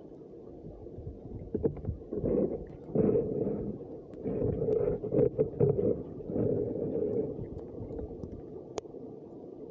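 Muffled low rumbling and irregular bumps picked up by an underwater camera beneath the ice, louder in bursts between about two and seven seconds in.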